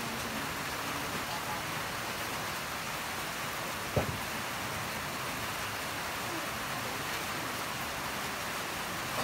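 Steady hiss of rain falling, with one short knock about four seconds in.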